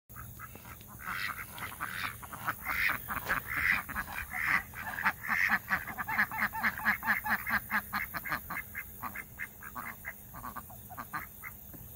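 A flock of domestic ducks quacking in quick, repeated calls, about four or five a second. The calls are loudest and densest in the first two-thirds and thin out toward the end.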